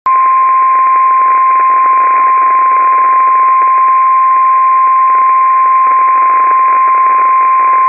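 NOAA Weather Radio warning alarm tone: one loud, steady, unbroken beep at about 1050 Hz over faint radio hiss. It signals that a weather alert broadcast follows.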